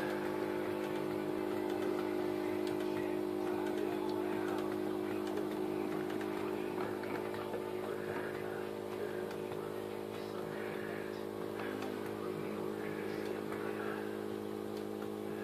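Quarter-scale live steam Hudson 4-6-4 locomotive running on compressed air instead of steam, its driving wheels and rods turning freely on blocks. A small nebulizer compressor feeding it gives a steady electric buzz, and soft puffs of exhausting air come about once a second.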